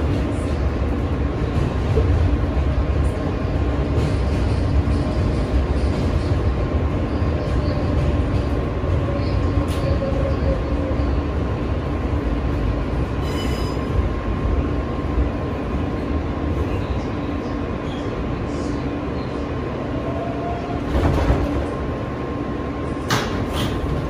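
New York City Subway L train running on its track: a steady rumble of wheels on rail with a thin, steady whine held over it, and a few sharp clicks near the end.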